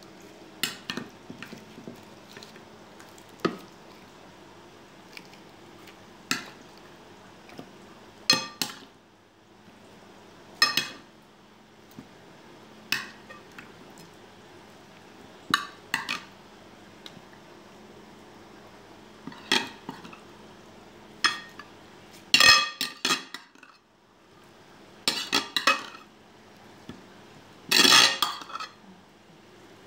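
Metal spoon clinking and scraping against a glass baking dish as marinated chicken pieces are spooned onto chopped vegetables, in irregular clatters every second or two, with a louder cluster about three quarters of the way through and another near the end.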